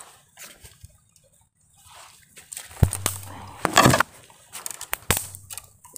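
Rustling and sharp knocks from climbing a thin tree while holding a camera, hands and camera brushing and bumping against the trunk and branches. The knocks come about three, four and five seconds in, the loudest just before four seconds.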